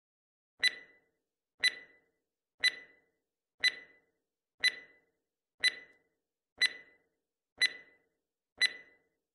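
Countdown timer sound effect: a short, sharp tick once a second, nine in all, each fading quickly.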